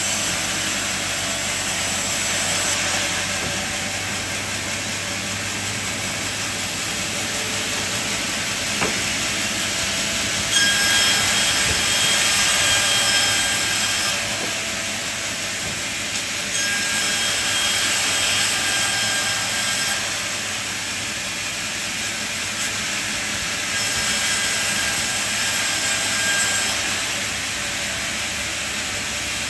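Sawmill running and sawing through timber: a steady hissing saw noise over a machine hum, growing louder with a faint whine in three stretches of about three seconds each, starting a little past ten, sixteen and twenty-four seconds in.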